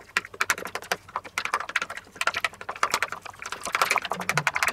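A metal spoon stirring honey-mustard marinade in a small plastic container. Rapid clicking and scraping strokes follow one another several times a second as the spoon knocks and drags against the plastic.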